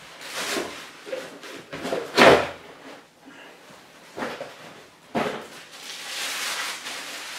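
Handling noise from a cardboard rifle box and its lid: a few knocks and scrapes, the loudest a thump about two seconds in. Near the end comes a long rustle of the plastic bag as the rifle is slid out of it.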